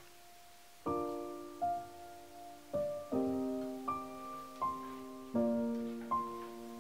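Slow, gentle background piano music: single notes and chords struck one after another, each ringing on and fading, with a quiet held note before the first chord about a second in.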